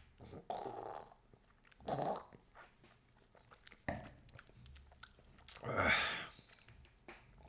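Mouth sounds of a man tasting a bitter herbal tea drink: lip-smacking and small sips, with the loudest, a noisy sip from a mug, about six seconds in.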